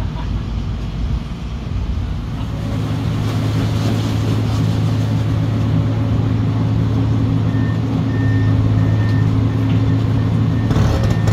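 Hydraulic excavator's diesel engine running steadily, working harder a couple of seconds in and louder again later on, with a brief clank near the end.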